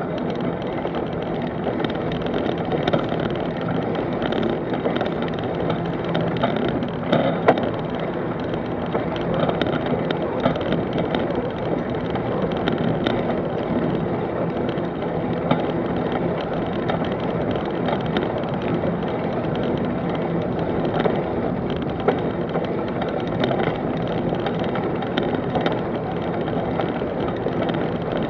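Bicycle rolling fast over a dirt woodland track: a steady rumble of tyres on the rough ground with rattling from the bike, and a sharper knock about seven seconds in.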